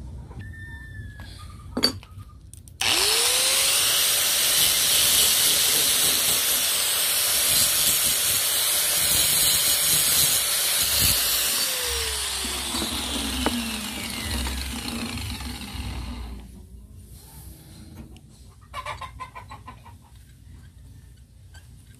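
Electric grinder switched on about three seconds in, its motor whining up to speed and grinding down a fresh weld on steel. Near the middle it is switched off: the whine falls in pitch as the disc winds down, and the grinding noise fades out a few seconds later.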